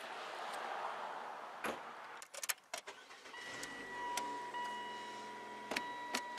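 A car hatch or door shuts with a knock, followed by a few clicks. Then the car's engine starts and settles into a low idle, under a steady high-pitched electronic chime from the dashboard. Another couple of clicks come near the end as the automatic gear selector is moved.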